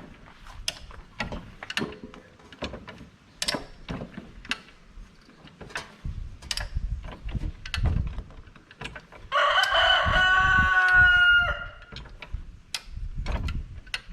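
A rooster crows once, a loud call of about two seconds about two-thirds of the way in. Around it come scattered sharp metallic clicks and knocks from jacking up the mower.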